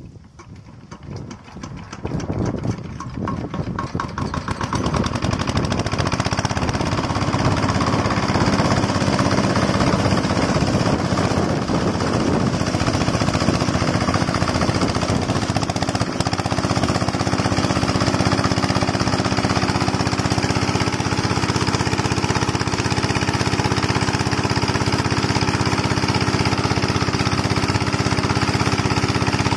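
Chinese 5 HP single-cylinder diesel engine of a shallow-tube-well water pump picking up speed over the first few seconds as its firing pulses crowd together, then running steadily at speed, its note settling about halfway through. Water from the pump outlet gushes out over the engine.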